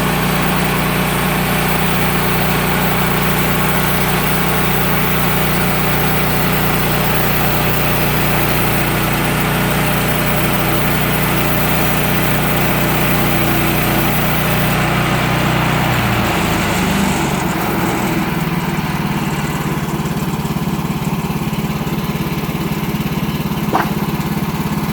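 Sawmill engine running steadily through a cut in a log. Its note changes about two-thirds of the way through, and there is a short click near the end.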